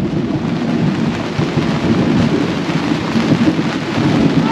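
Heavy thunderstorm rain pouring onto a sailboat's canvas and clear-plastic cockpit enclosure, a loud, dense, steady rush.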